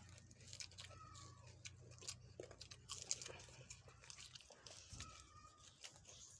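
Faint close chewing and biting of green papaya salad wrapped in raw leafy greens: soft, irregular crunching clicks. A faint steady low hum underneath stops about four seconds in.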